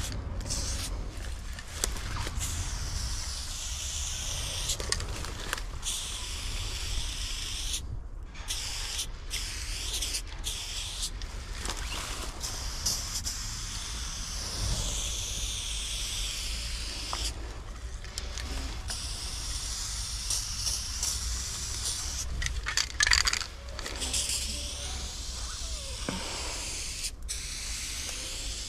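Aerosol spray-paint can hissing in long bursts with short breaks between strokes as black outlines are sprayed onto rough concrete.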